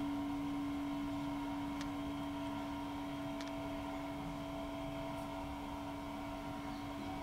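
A steady, unchanging hum with one strong low tone, and two faint clicks about two and three and a half seconds in.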